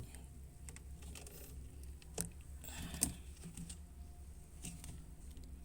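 Scattered small clicks and taps of washing-machine drain valve parts being handled and fitted back together, over a low steady hum.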